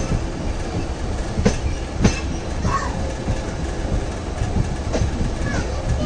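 Passenger train running, heard from on board: a steady rumble with irregular clacks of the wheels over rail joints, the loudest about two seconds in, and a couple of brief squeals from the wheels.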